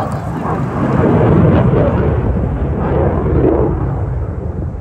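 Aircraft flying past low, its engines a loud, rumbling noise that builds over the first second, holds, and eases off near the end.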